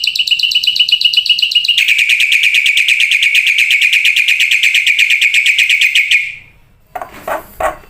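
A songbird's long, rapid, evenly pulsed trill. About two seconds in it shifts to a slightly lower, denser rattle, which stops about six seconds in. Shorter, lower-pitched pulsed calls follow near the end.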